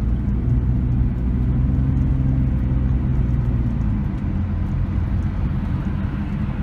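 Chrysler Stratus engine running with a steady low hum, with a slight change in its note about four seconds in.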